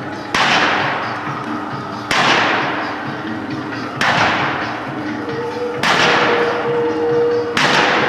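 A loud crash roughly every two seconds, each dying away slowly over a second or so like a struck cymbal or sheet of metal, with a faint steady tone underneath that grows clearer near the middle.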